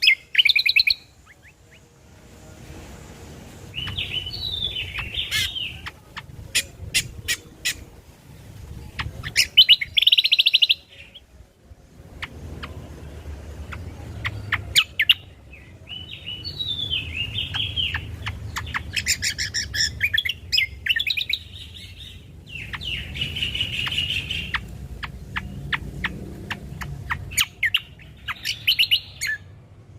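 Cucak kombo (kecial kombo) songbird singing in repeated chattering phrases mixed with sharp clicking notes, over a low background rumble.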